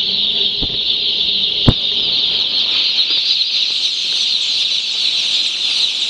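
A large crowd of broiler chicks peeping continuously in a dense, high-pitched chorus of overlapping cheeps. A single sharp knock stands out a little under two seconds in.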